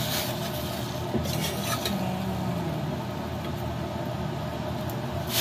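Steady mechanical hum at a lit gas stove, with a few faint clinks of a ladle against a stainless steel pot.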